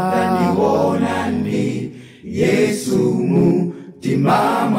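Several voices singing unaccompanied in harmony, a slow chorus phrase broken by short pauses about two seconds in and again near four seconds.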